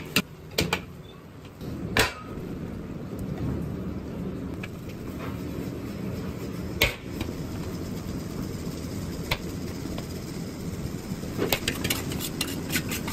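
Metal wok ladle clanking now and then against a steel wok and a plate as fried rice is scooped and heaped, with single knocks about 2 s and 7 s in and a quick run of knocks near the end. Under it is the steady roar of a gas wok burner.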